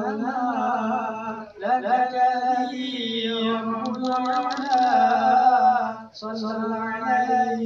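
A man singing a cappella in a drawn-out, ornamented chanting style, holding long wavering notes. He breaks off for a breath about a second and a half in and again near six seconds.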